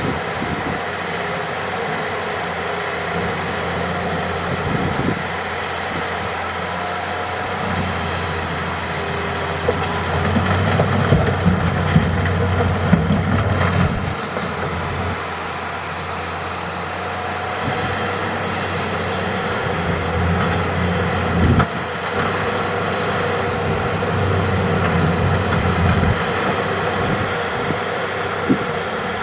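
Hitachi excavator's diesel engine running steadily, swelling louder twice as it works under load digging and loading rock. A sharp knock about two-thirds of the way through, and a smaller one near the end.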